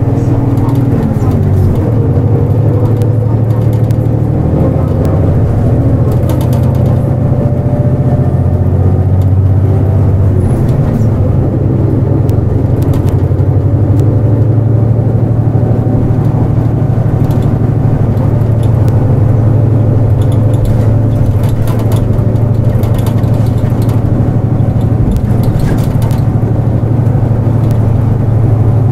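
Diesel engine of a KL-JP252NAN (Nissan Diesel JP) non-step city bus running under way, heard from inside, with a steady low drone. Its pitch glides in the first few seconds, then holds steady, with light rattles and clicks from the cabin.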